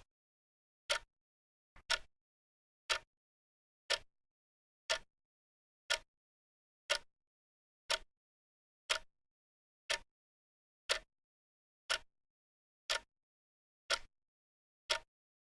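Clock ticking once a second: short, sharp, even ticks with silence between them.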